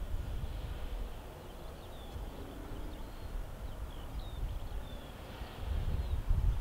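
Wind buffeting the microphone in irregular low gusts, with a stronger gust near the end. Small birds chirp in short, falling notes over it.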